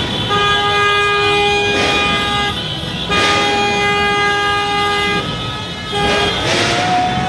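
Car horns honking in celebration: long held blasts of about two seconds each with short breaks between them, sounding one after another.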